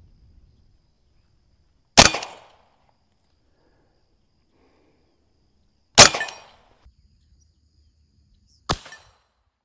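BinTac (AEA) S45 Mini .45-calibre semi-auto big-bore air rifle firing: two loud, sharp shots about four seconds apart, each with a brief echo tail. A shorter, quieter sharp report follows near the end.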